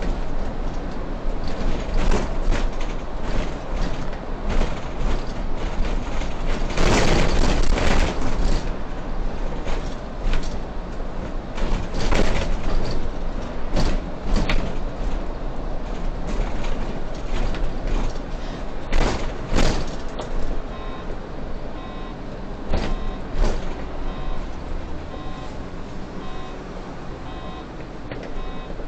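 Solaris city bus driving, heard from the driver's cab: steady engine and road noise with frequent knocks and rattles from the body. There is a louder rush of noise about seven seconds in, and a faint regular ticking in the last third.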